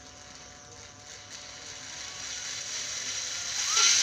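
Motor of a Makita 12V cordless impact wrench running at low speed on a partly squeezed variable-speed trigger, growing louder, then spinning up with a rising whine near the end as the trigger is pressed further.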